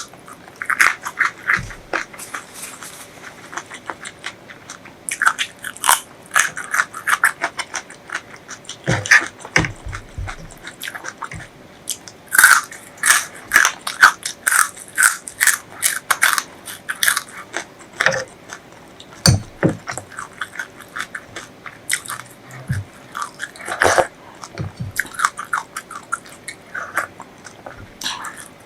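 Close-miked eating: biting, crunching and chewing, with sharp crackly clicks coming in bursts separated by short pauses.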